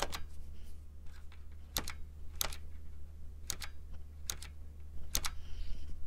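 Alps-type mechanical keyboard switches pressed and released one key at a time, about six presses roughly a second apart. Each press gives a pair of sharp clicks close together.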